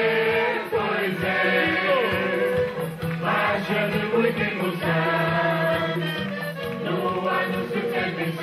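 A folk choir, mostly women's voices, singing a Portuguese marcha popular together, accompanied by accordion and acoustic guitar over a steady march beat.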